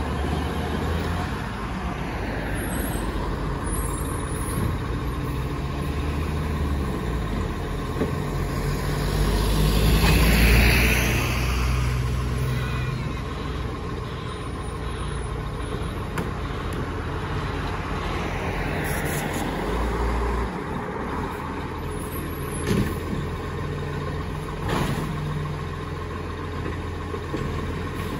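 Diesel engine of an Iveco side-loader recycling truck running as it creeps up the street, with a hiss of air brakes about ten seconds in and a couple of short knocks later on as it works the kerbside bins.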